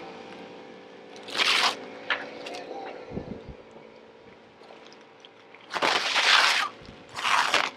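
Large sheet of clear, grid-reinforced plastic patterning material crinkling and rustling as it is swung and flipped over. There are three loud bursts: one about a second and a half in, and two close together near the end.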